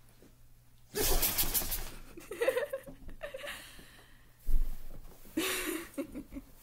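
A dog sneezing: sudden bursts about a second in and again about four and a half seconds in, with short pitched sounds between and after.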